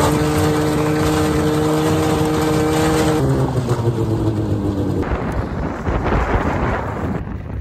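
Snowmobile engine running at a steady speed, then dropping in pitch about three seconds in as it eases off. After that only a rush of wind noise is left.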